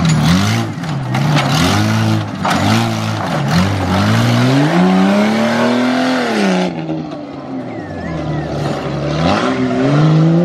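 Jeep Cherokee's engine revving in short up-and-down bursts as it crawls over logs, then held in a long rising rev as it accelerates across the dirt, easing off and revving up again near the end. A rushing noise over the engine cuts off suddenly about two-thirds of the way in.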